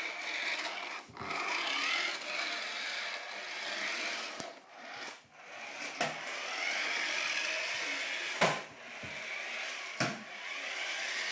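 Small electric toy RC car driving and skidding across a hard floor: a whirring motor whine that rises and falls in pitch, with the tyres rubbing and scraping. About five sharp knocks break in, the loudest about eight seconds in.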